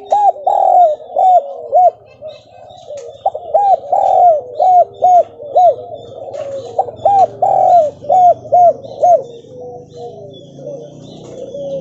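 Spotted dove (tekukur) cooing in quick runs of short arching notes, about three a second, in the broken 'gagap' style, with lower drawn-out coos beneath them. The runs break off twice and trail away near the end.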